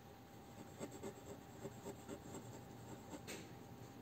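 Faint scratching of a pen writing on paper, in soft irregular strokes.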